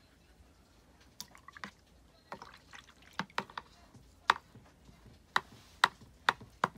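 Liquid dripping and small sharp taps: about ten at uneven intervals, louder and more frequent in the second half.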